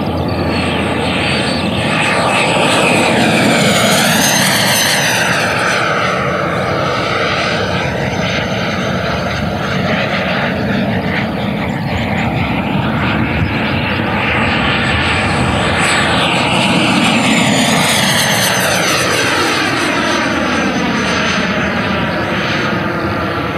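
High-power electric ducted-fan RC model jet flying fast passes, its fan whine sweeping up and down in pitch as it approaches and pulls away, loudest twice, about 3 seconds in and again about 17 seconds in.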